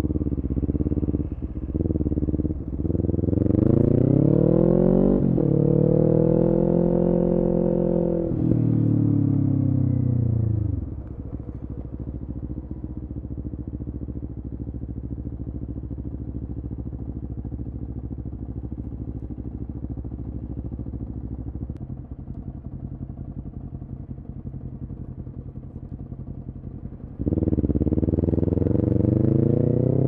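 Kawasaki Ninja 400's parallel-twin engine through an Akrapovic full exhaust system. It revs up through a gear change, then drops back to a steady idle for about fifteen seconds, and pulls away again with rising revs near the end.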